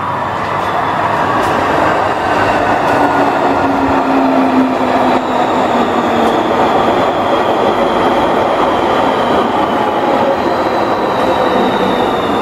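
RET type SG2/1 metro train pulling into the platform and slowing to a stop. The rolling noise of the train on the rails grows loud as it arrives, with several whining tones that slowly fall in pitch as it slows.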